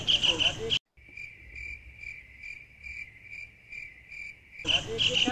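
Cricket chirping sound effect of the awkward-silence meme: a high chirp repeating about twice a second, starting after a sudden cut about a second in and stopping shortly before the end.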